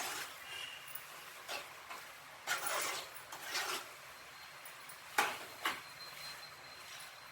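A spoon or spatula stirring chicken pieces in thick masala in a cooking pan, giving short, irregular scraping strokes against the pan.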